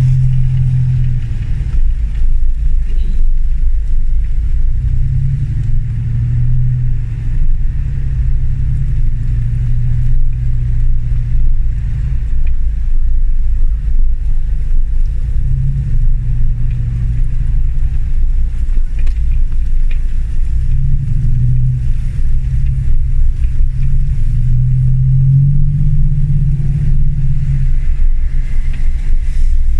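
Land Rover Discovery 1's 300Tdi four-cylinder turbodiesel running under way off-road, its engine speed rising and falling over a steady low rumble.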